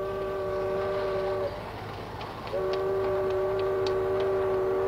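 Steamship's horn sounding two long blasts, each a steady chord of several tones. The first cuts off about a second and a half in, and a second, longer blast starts about two and a half seconds in.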